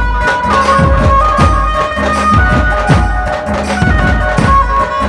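Chhattisgarhi dhumal band playing live: large drums beat a steady rhythm, about two or three strokes a second, under a melody of held notes that move in steps.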